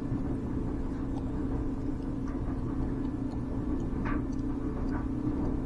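Automotive smoke machine running during an EVAP leak test, a steady low hum with a constant drone, with a few faint ticks.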